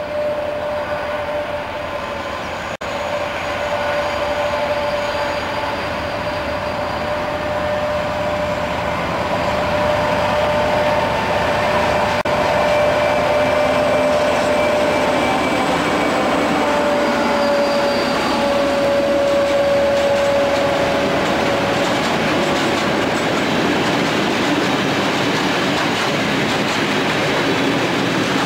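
Two ČKD diesel locomotives, a class 742 and a class 771 working in multiple, under power as they pull a heavy train of fuel-oil tank wagons away, with a steady engine tone. The sound grows louder over the first ten seconds or so, and in the last third the rolling of the tank wagons going past builds up.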